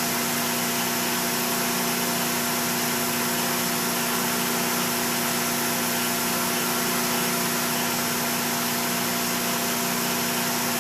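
A 15-inch metal lathe running steadily with a constant hum from its motor and gearing, while a round carbide insert in a boring-head radius cutter turns a ball end on a spinning metal bar.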